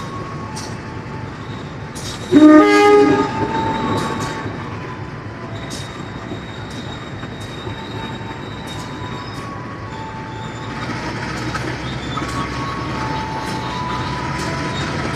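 Passenger train coaches rolling past on the platform track, with wheels clicking over the rail joints and thin, high squeals coming and going. A loud train horn sounds about two seconds in and lasts a second or so.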